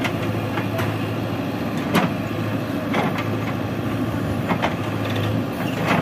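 JCB 3DX backhoe loader's diesel engine running steadily as the backhoe arm swings the bucket over a tipper truck, with a few sharp knocks about two, three and four and a half seconds in.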